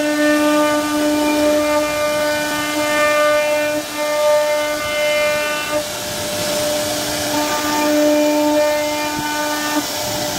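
CNC router spindle running with a steady high whine while its bit cuts into a wooden door panel, over a hiss of cutting. About six seconds in the whine weakens and the cutting hiss grows.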